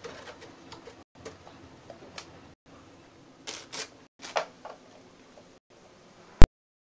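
Faint scuffs and rustles, a few louder ones around the middle, broken by short dropouts of the sound. Near the end comes a single very loud click, and the sound cuts off to dead silence.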